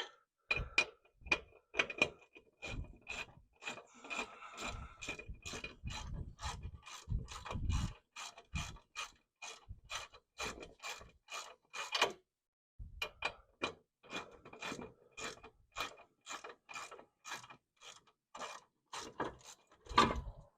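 Socket ratchet clicking steadily, a few clicks a second with a short pause partway, as it backs out the front brake caliper bracket bolts.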